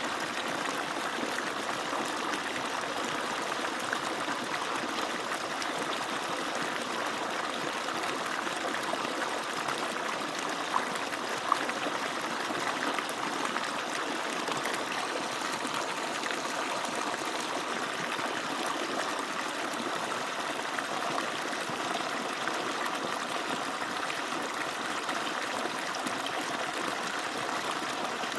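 Water pouring steadily from an agricultural pump's outlet and splashing down, a constant rushing splash, with two brief sharper splashes about eleven seconds in.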